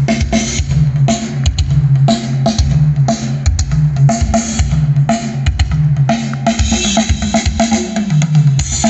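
Music with a pounding kick drum and a heavy bass line played loud through a PA system of two subwoofer cabinets and two top cabinets driven by a power amplifier, showing off the system's heavy, solid bass.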